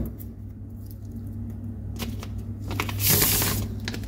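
Handling noise from a tablet being moved in the hands: a few light clicks, then a brief rustling swish about three seconds in, over a steady low hum.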